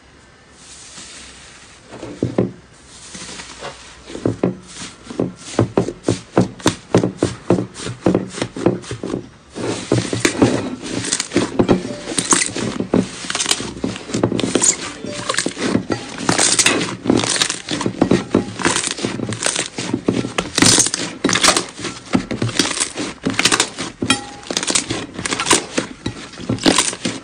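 Slime being squeezed and pressed by hand, making dense, irregular crackling and popping clicks, several a second, starting about two seconds in.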